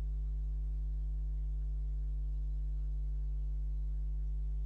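Steady electrical mains hum picked up by the recording, a low drone with a stack of evenly spaced higher overtones and nothing else.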